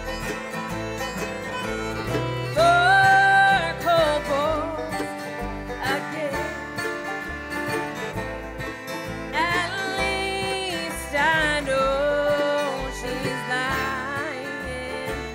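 Bluegrass band playing an instrumental break: banjo, mandolin, acoustic guitars, fiddle and upright bass, with a lead line of held, sliding notes over the steady rhythm.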